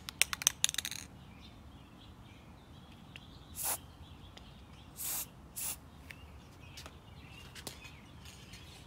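Aerosol spray-paint can giving three short bursts of spray, each a brief hiss, the last two close together. A quick clatter of sharp clicks comes in the first second.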